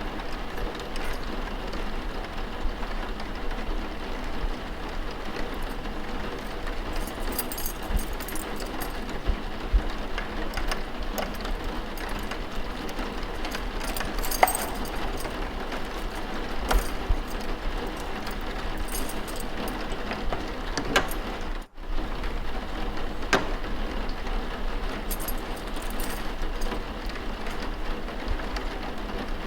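Study ambience of steady rain with scattered small library noises: light clicks, taps and rattles over an even hiss. The sound drops out for a split second about two-thirds of the way through, as at the seam of a looped recording.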